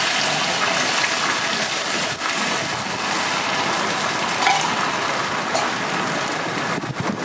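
Beaten egg poured from a ladle onto a hot iron griddle, sizzling steadily as the omelette fries.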